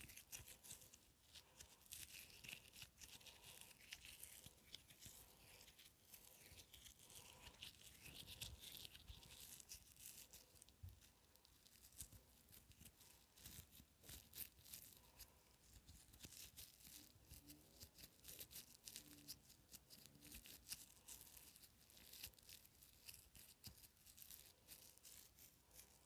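Faint, dense crackling with fine clicks and pops from pink foam slime being worked with the fingertips.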